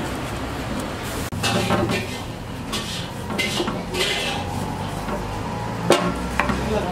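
Knife cutting lemons on a wooden block, with several scattered knocks and clinks of the blade; the sharpest comes near the end. A steady low hum runs underneath.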